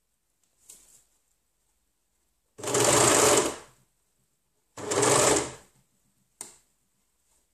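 Overlocker (serger) running in two short bursts of about a second each, with a pause between, as the stretch binding is stitched along the hem of a knit dog shirt. A brief blip of the machine follows near the end.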